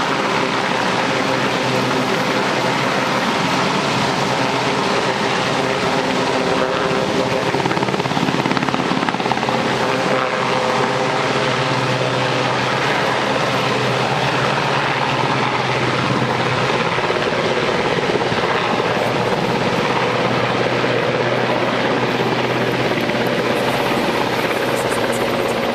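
Royal Navy Sea King search-and-rescue helicopter hovering low, its rotor and turbine engines making a loud, steady din with a constant hum under it.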